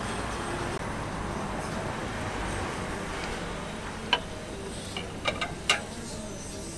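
Steady background noise at a bungeoppang (fish-shaped bread) griddle, with four sharp clicks of tools and cast-iron molds about four and five and a half seconds in.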